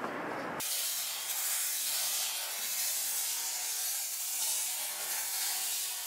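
Flames blazing up out of a frying pan on a stove, a steady rushing hiss that starts with a sudden cut about half a second in.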